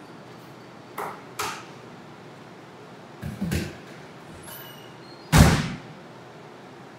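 A series of sharp knocks and bangs: two quick knocks about a second in, a double knock in the middle, then a heavy bang, the loudest, a little after five seconds.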